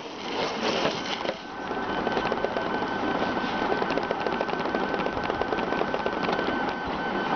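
RapidBot 2.0 3D printer running mid-print, its stepper motors driving the hot end over the bed with fast, dense ticking; a steady high whine sets in about a second in.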